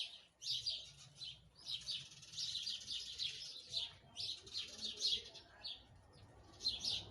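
Small songbirds chirping and twittering, many short high calls overlapping in busy runs with brief lulls between.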